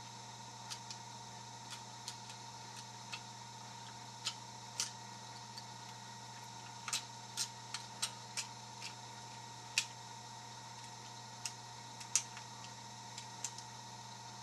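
Scattered light metallic clicks and ticks, irregular and spaced out, of a jackknife blade picking a rusty pin-tumbler discus padlock with mushroom security pins, over a faint steady hum.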